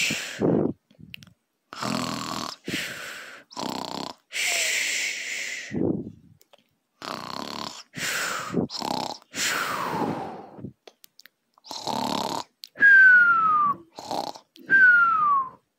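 Snoring, over and over: a series of rasping snores with short pauses between them, and near the end two whistling snores that fall in pitch.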